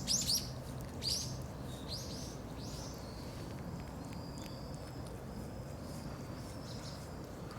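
Birds chirping: a few short, high, downward-sweeping calls in the first three seconds, then a faint thin high note, over steady outdoor background noise.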